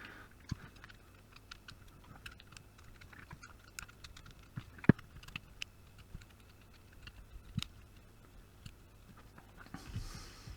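Light, irregular clicks and taps of hand work on a circuit board as thermally conductive compound is picked and cleaned off, with one sharper tap about five seconds in.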